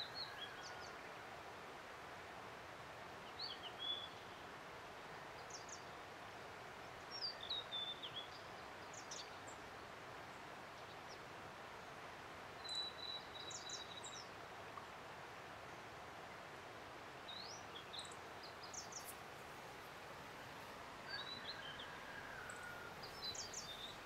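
Blue-and-white flycatcher singing from a distance: short, high whistled phrases with quick slides and trills, repeated about every two to three seconds over a steady hiss of running water.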